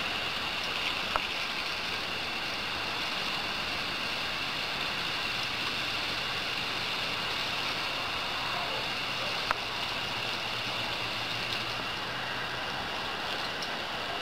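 Steady hiss and patter of a thin garden-hose stream of water falling on grass, with two short sharp clicks, one about a second in and another about nine seconds later.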